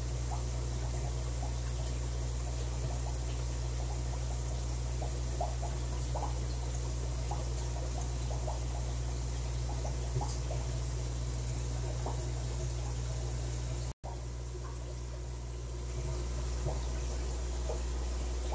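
Fish-room aquarium ambience: a steady low hum with water trickling and small bubbling pops throughout. It drops out for a split second about fourteen seconds in.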